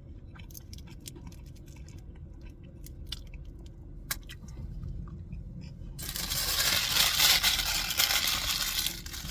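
A person chewing a breaded chicken tender sandwich, with small wet clicks and crunches over a steady low hum. About six seconds in, a loud rustling noise comes in for about three seconds.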